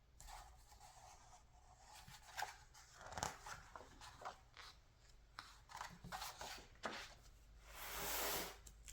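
Glossy magazine pages being handled and turned: faint scattered crinkles and rustles, then a longer swish of paper near the end.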